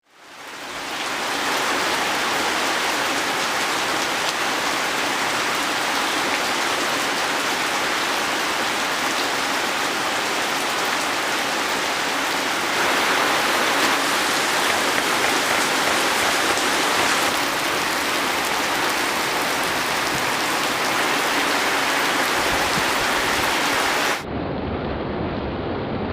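Steady heavy rain falling, fading in at the start. Near the end the sound switches abruptly to a duller rush of the same kind.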